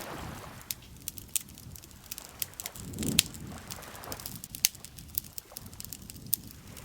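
Campfire crackling, with sharp irregular pops, the loudest just after three seconds in. Under it, lake water laps softly, with a low wash swelling at the start and again about three seconds in.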